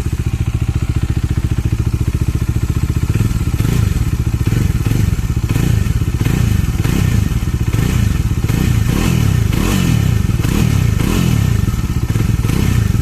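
Bajaj Dominar 400's single-cylinder engine through its stock exhaust, with a deep, bassy note: idling with an even beat, then blipped repeatedly from about three seconds in, the pitch climbing and falling with each rev.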